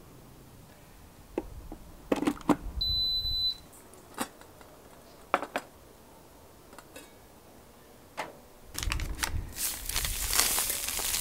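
A portable induction hob gives one short high beep, with clinks of a stainless steel pot and lid on the hob just before it and a few more clicks after. Near the end a plastic bag crinkles and rustles as it is handled.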